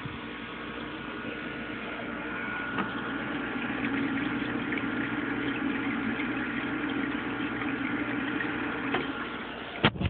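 Steady mechanical hum of a small motor with a few held tones, a little louder from about four seconds in, and a couple of sharp knocks right at the end.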